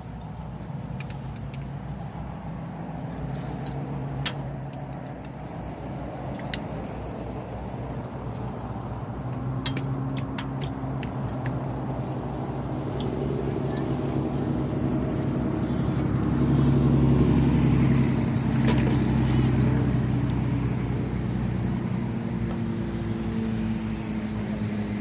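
Motorboat engine passing on the lake, its steady hum growing louder to a peak about two-thirds of the way through and then fading. A few sharp clicks sound in the first half.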